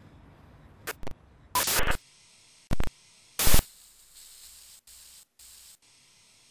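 Short, abrupt bursts of hiss-like static, the loudest about three and a half seconds in, with the sound cutting in and out sharply between them.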